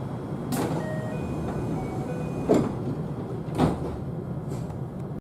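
Train sliding passenger doors operating: a faint door chime of short tones, a knock near the start, then two louder thuds about a second apart as the doors close, over the train's steady low hum.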